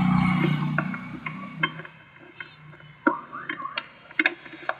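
Scattered light metallic clicks and clinks as a new Bendix starter drive gear is handled and seated in a scooter's starter housing, with a low rumble fading out in the first second.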